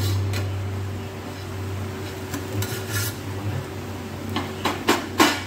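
Steel spatula scraping and clinking in an iron kadai of thick paste and against its steel lid as the lid comes off, with several sharp clanks near the end. A steady low hum runs underneath.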